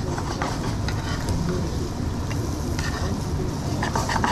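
Busy kitchen noise: a steady low rumble with a hiss over it, and a few clinks of utensils, most of them near the end.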